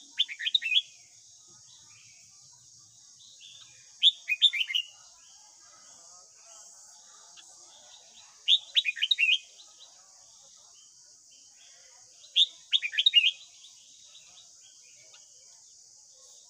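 Red-whiskered bulbul singing: short phrases of quick, falling whistled notes, one about every four seconds, four in all, over a steady faint high hiss.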